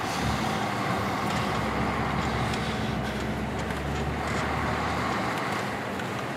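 Truck engine running with steady road noise, heard from inside the cab; the low rumble eases off near the end.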